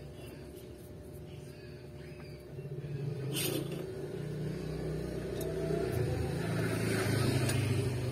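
A low motor rumble that swells about two and a half seconds in and holds, with a single sharp click about a second later.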